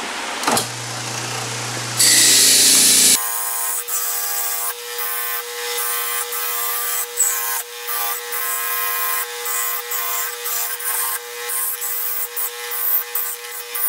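An old electric motor with a wire wheel on its shaft runs with a steady hum while a small metal knife is held against the spinning wire wheel, giving repeated scratchy brushing strokes as the dirt is scrubbed off. About two seconds in there is a loud hiss lasting about a second, and the sound changes abruptly just after.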